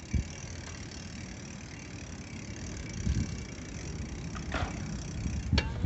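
Bicycle rolling over brick pavers: a steady low rumble of tyres and riding noise, with a sharp knock just after the start and another near the end.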